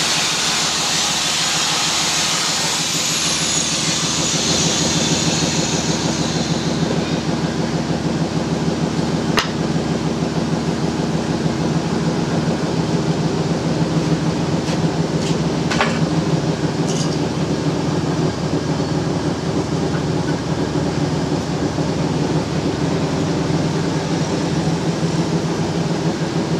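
Steady, loud mechanical running noise, a constant low hum with a hiss above it, broken by a few sharp clicks.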